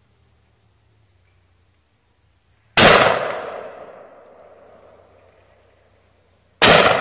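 Two shotgun blasts from a Century Arms JW2000 12-gauge double-barrel coach gun, about four seconds apart, each with a long ringing decay.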